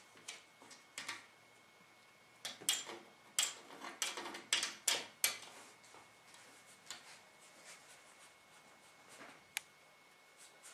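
A run of short scratches and clicks, densest between about two and five seconds in, with lighter ticks before and after, over a faint steady high whine.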